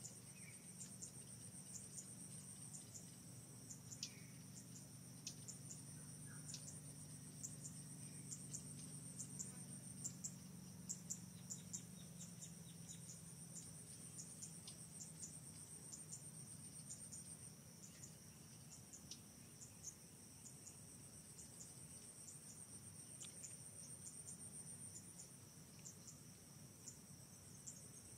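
Insect chorus trilling steadily in the trees: a high, continuous buzz with rapid ticking, and a faint low rumble through the first half.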